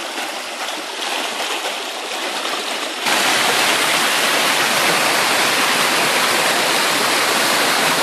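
Hill-stream water rushing down small rock cascades: a steady rush that jumps louder and deeper about three seconds in.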